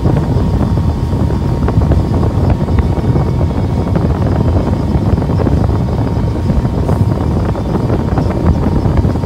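A Stamas 31 Express powerboat under way on twin Tohatsu 250 outboards: a loud, steady rush of wind buffeting the microphone over the low noise of the boat running.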